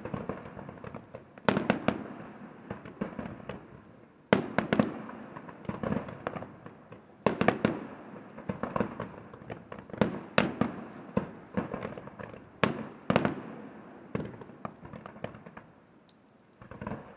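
Aerial firework shells bursting in an irregular barrage, sharp bangs roughly every second or so, each with an echoing tail. The bangs thin out near the end, with one last bang just before it ends.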